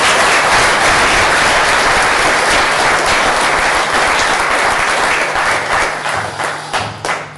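Audience applauding, dense and steady, thinning to a few scattered claps near the end before stopping.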